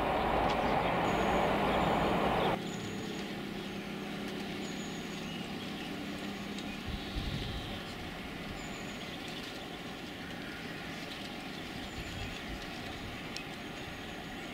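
A train's coaches run over the rails with a loud rushing rumble that stops abruptly at a cut. Then comes the steady drone of a distant approaching Class 37 diesel locomotive's English Electric engine, with birds chirping.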